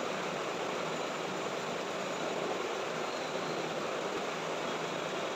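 Steady background noise, an even whoosh with no distinct events.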